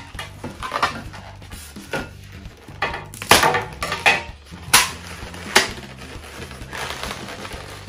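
Inflated latex twisting balloons rubbing against each other and the hands as a balloon flower is handled: a string of short, sharp crinkling noises, the loudest about three seconds in.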